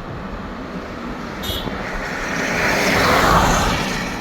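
Steady road and tyre noise from a car driving on a highway, with a passing vehicle's rush swelling to a peak about three seconds in and then fading.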